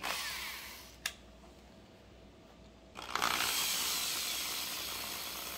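Small electric drill fitted with a very small bit, drilling out a stuck watch-link screw. It whirs briefly and dies away, a click follows about a second in, and then it runs steadily from about three seconds in.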